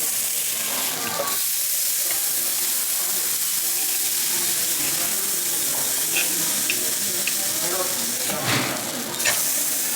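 Food sizzling steadily in a hot frying pan, with a few light clicks and a louder knock near the end.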